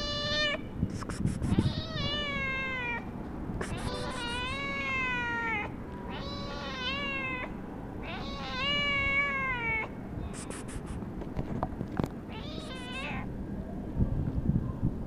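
Tortoiseshell cat meowing at a person: a series of about six long, drawn-out meows, each dropping in pitch at the end, spread over the first thirteen seconds.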